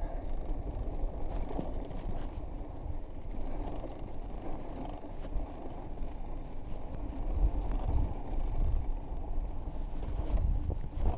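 Wind buffeting the microphone over the rumble of a mountain bike's tyres rolling over slickrock sandstone, the low rumble swelling in gusts around the middle and again near the end.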